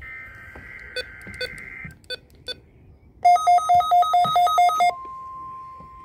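NOAA Weather Radio test alert on weather radio receivers. It opens with the SAME digital header, a warbling two-tone data buzz lasting about two seconds, then a few sharp clicks. A radio's own rapid beeping alarm follows for about a second and a half, and the steady 1050 Hz warning alarm tone starts about five seconds in.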